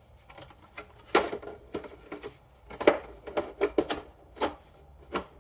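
Irregular clicks and knocks, about nine in all, as the plastic body shell of a Traxxas Slayer Pro 3.3 RC truck is handled on a plywood bench. The loudest come about a second and about three seconds in.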